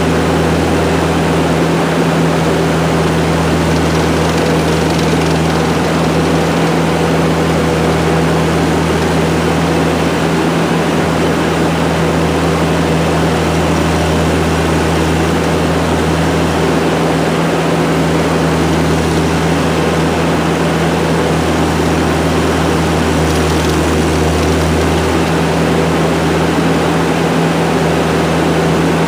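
ASV compact track loader's diesel engine running steadily and loudly, its deep drone swelling and easing a little every few seconds.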